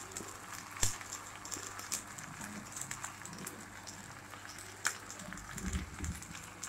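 Faint crackling and sizzling from drumstick leaves cooking in oil in a clay pot over a low flame, with a few sharp pops, the loudest about a second in and again near five seconds. Soft handling bumps near the end as a hand spreads the coconut masala in the pot.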